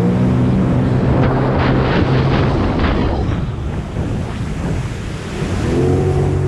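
2021 Sea-Doo Spark Trixx jet ski's Rotax 900 ACE three-cylinder engine running steadily under way, with wind on the microphone and several slaps of water against the hull. Around the middle the engine note drops away under the wind and water noise, then rises again near the end as the throttle comes back on.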